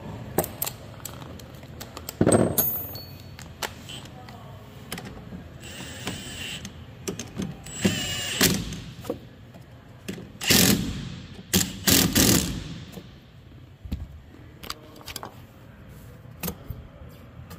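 A Milwaukee M18 cordless power tool is run in several short bursts with a socket on the hub nut of a Thermo King condenser fan. Between the bursts come clicks and knocks of tools and metal parts.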